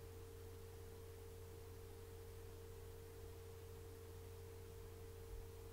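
Near silence with a faint, steady low hum and a constant pure tone above it.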